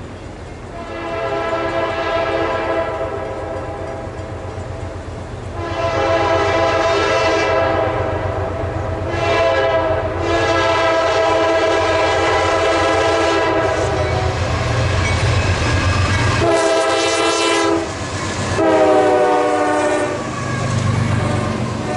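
Norfolk Southern diesel freight locomotive's air horn sounding for a grade crossing: several long blasts, then two short ones near the end, the last one dropping in pitch as the locomotive passes. The locomotive's low engine rumble swells as it goes by.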